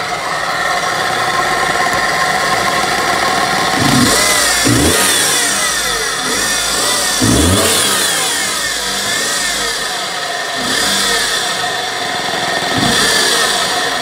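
Nissan Clipper van's 660 cc three-cylinder engine running and revved in several short blips, with a whine that rises and falls with engine speed: the sound problem the van is being checked for.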